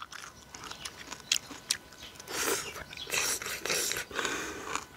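Close-miked eating of mugwort knife-cut noodles: soft chewing and small mouth clicks, then from about two seconds in, noodles slurped in several long pulls.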